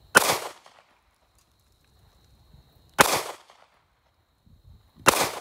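Sig Sauer P365 9mm semi-automatic pistol firing three single shots, about three seconds and then two seconds apart, each with a short echo.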